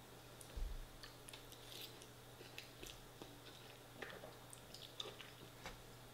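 Close-miked chewing of a mouthful of chilli con carne and rice: soft, wet mouth clicks and smacks, with a low thump about half a second in.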